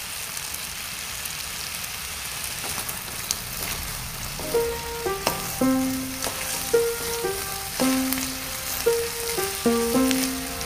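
Yard-long beans and sliced onion sizzling as they are stir-fried in a wok. From a little under halfway, background music of plain held notes plays over the sizzle.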